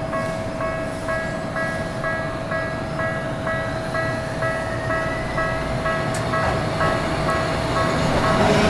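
Japanese level-crossing warning bell ringing electronically at about two and a half strikes a second. A Tokyu Setagaya Line train is heard approaching, its rumble growing louder near the end.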